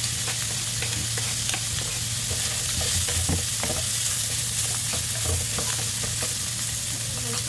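Shredded chicken, onion and carrot sizzling in a wok while a wooden spatula stirs them, with frequent short scrapes and taps of the spatula against the pan over a steady hiss of frying.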